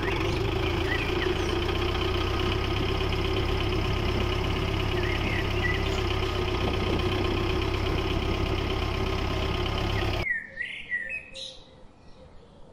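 A steady engine-like running noise from a homemade miniature tractor, a low hum under a held drone, which cuts off suddenly about ten seconds in. Birds chirp over it and more clearly once it stops.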